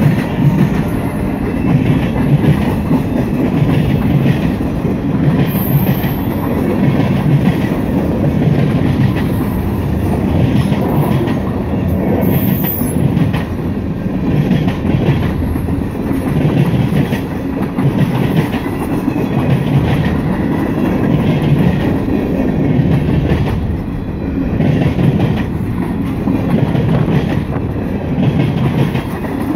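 Freight cars of a long train rolling past close by: steel wheels clicking over the rail joints in a steady rhythm over a continuous rumble. There are two brief high wheel squeals, about six and twelve seconds in.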